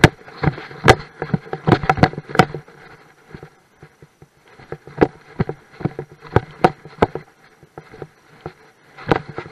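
Irregular knocks and thuds of footsteps and a jostled handheld camera while walking down a dirt path. They come thick in the first couple of seconds, thin out for a few seconds around the middle, then pick up again.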